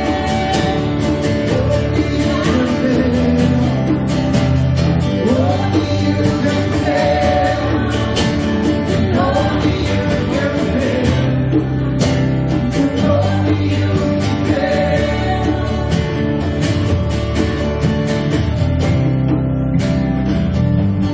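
Live church worship band playing a song: guitar, keyboard and drums with a steady beat, and a voice singing over it.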